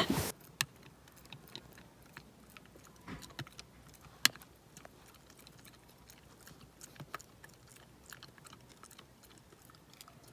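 A dog chewing: sparse soft crunches and clicks, with one sharper click about four seconds in.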